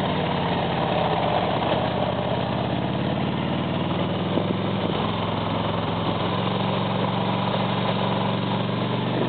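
Harley-Davidson Ultra touring motorcycle's V-twin engine running under way, its note shifting a little with the throttle, over steady wind and road noise.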